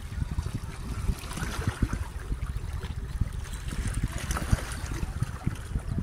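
Lake water lapping and trickling among the rocks of a stone shoreline, as a steady uneven wash with a low irregular rumble beneath it.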